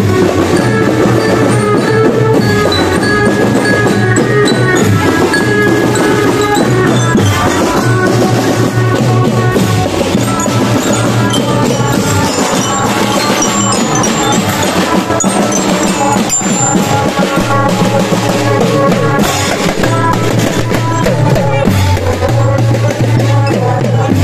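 Children's marching drum band playing a tune: drums beating under a melody rung out on marching bell lyres (glockenspiels).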